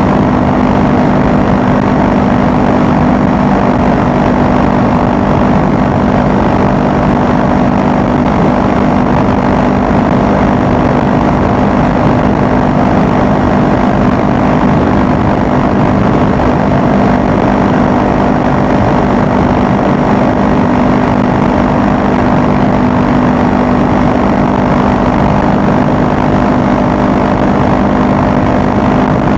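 Honda Rebel 500's parallel-twin engine running steadily while cruising on the highway, under heavy wind and road noise. The engine note holds level, with no shifting or revving.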